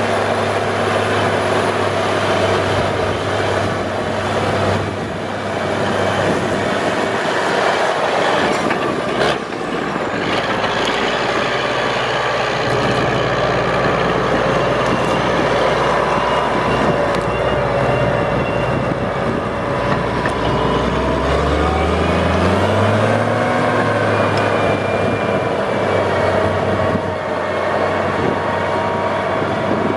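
The Cummins 855 cubic inch (14-litre) six-cylinder diesel of a New Holland Versatile 9684 four-wheel-drive tractor running steadily under load while pulling a five-shank ripper. About 22 seconds in, its pitch rises for a couple of seconds as the engine picks up speed.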